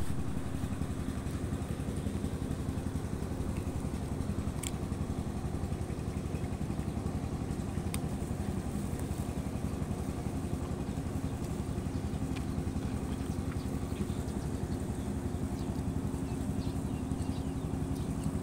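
A small engine running steadily at idle, a fast even pulsing with a steady low hum, with a few faint clicks over it.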